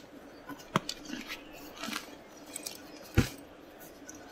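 A large soft-sided roller luggage bag being handled and laid flat on a hard floor: a few light clicks and knocks of its handles and hardware, and one dull thump about three seconds in.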